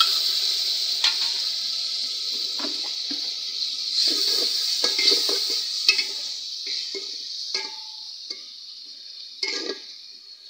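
Ginger-garlic paste and ground spices sizzling in hot oil in an aluminium pot, the hiss slowly dying down, while a steel ladle stirs, scrapes and clinks against the pot.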